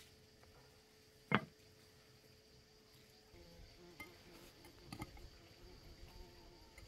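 A single sharp knock about a second in, then an insect buzzing faintly from about halfway through, with a few light clicks.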